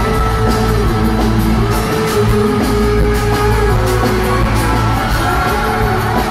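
Live pop-rock band with lead singing, loud and bass-heavy, heard from the audience through a phone's microphone in an arena.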